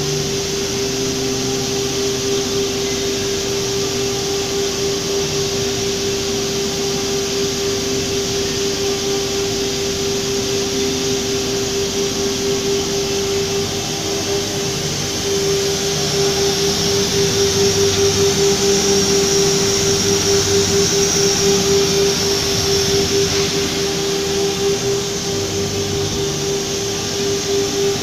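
Philicam ATC CNC router running: a steady whine over a constant rushing noise, turning somewhat louder and brighter for several seconds past the middle.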